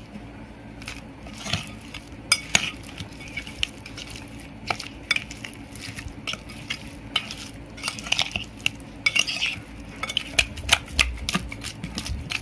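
Hands mixing raw fish steaks with ginger-garlic paste and spice masala in a glass bowl: irregular sharp clicks and taps against the glass, with softer rubbing sounds between them.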